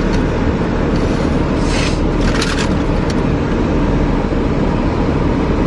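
Steady low drone of an idling car heard inside the cabin, with two short rustles of a paper pastry bag about two seconds in and a light click a second later.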